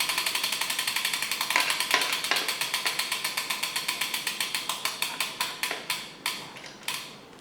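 A bicycle rear wheel's freehub ticking as the wheel coasts down: rapid, even clicks that slow steadily and fade, stopping near the end.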